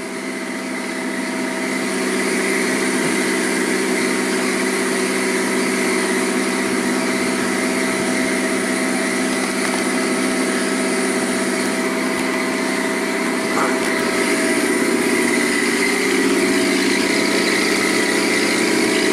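Boat lift's engine running steadily, growing a little louder over the first couple of seconds.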